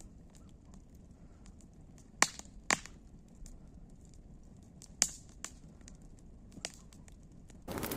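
Wood fire crackling: scattered sharp pops and small snaps of burning wood over a low background. Just before the end, a louder, denser crackling noise starts abruptly.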